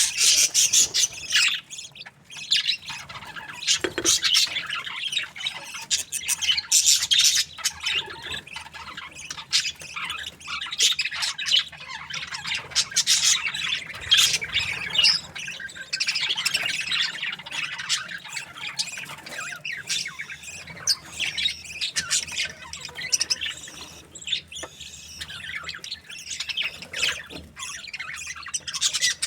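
A flock of budgerigars chattering: many overlapping chirps, warbles and short squawks, with a brief lull about two seconds in.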